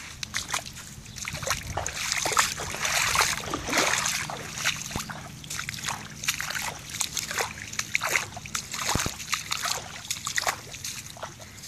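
Footsteps squelching and splashing through soggy, waterlogged grass and shallow standing water, an irregular run of wet steps that is loudest a couple of seconds in.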